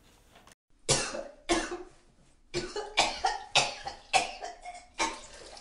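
A person coughing repeatedly: a run of about eight harsh coughs in quick succession, starting about a second in.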